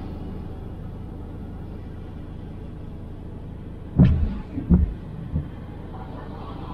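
Steady low rumble of a Ford Focus ST Mk4 on the move. Three short, dull thumps come a little past the middle, under a second apart, the first the loudest.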